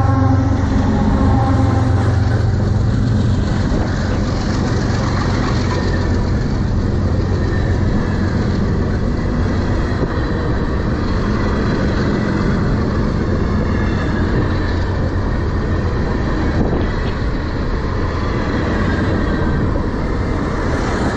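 Freight train passing at close range. A diesel locomotive's engine drone fades within the first two seconds, then loaded tank cars roll by with a steady, heavy noise of steel wheels on rail.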